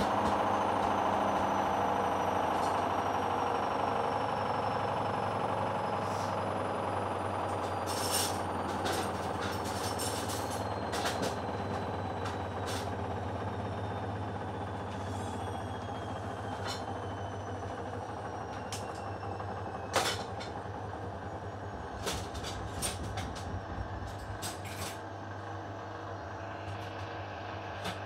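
Hoover Dynamic front-loading washing machine with its drum spinning down: a steady motor hum and a whine that slowly falls in pitch and fades. Scattered sharp clicks and knocks come in from the middle on, the loudest about two-thirds of the way through.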